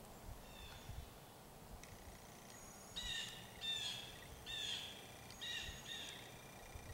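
A bird calling in woodland: a run of about five short, harsh calls in quick succession starting about three seconds in, over faint outdoor background noise.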